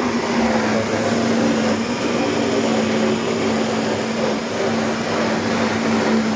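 Electric juicer blenders running with a steady hum, amid background chatter of people.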